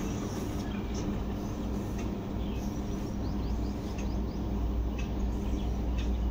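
Steady low background rumble, with a few faint high chirps about three seconds in and a few soft clicks.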